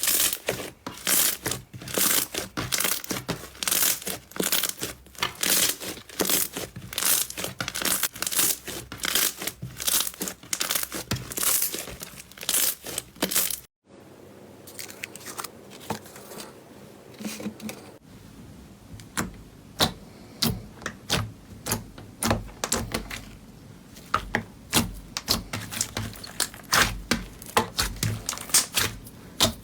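Slime being squeezed, stretched and pressed by hands, giving dense crackling and popping clicks. About halfway through the sound cuts off and resumes quieter, with sparser pops that grow busier towards the end.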